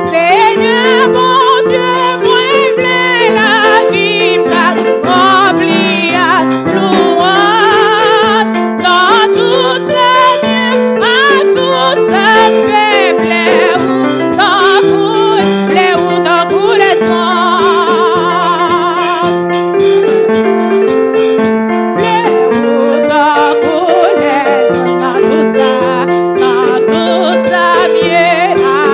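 Congregational praise singing with electric keyboard accompaniment: voices with a wavering vibrato over steady keyboard chords and bass notes, with scattered hand clapping.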